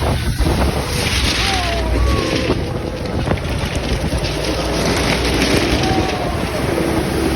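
GAZ-66 army truck driving through a river: water rushing and splashing around it over a low engine rumble, with wind buffeting the microphone.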